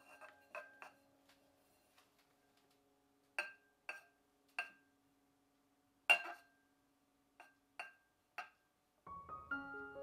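Metal palette knife and cake turntable clinking lightly while cream is spread, about ten separate clicks, each with a brief ring. Music with mallet-like notes comes in near the end.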